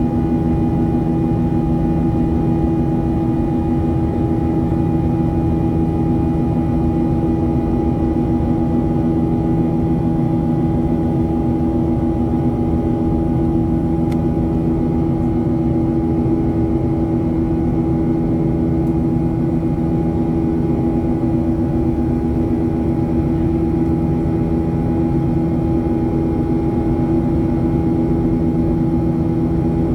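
Boeing 737-700's CFM56-7B jet engines running steadily, heard inside the passenger cabin as a loud, constant rumble with a steady hum and a few fixed tones that do not change.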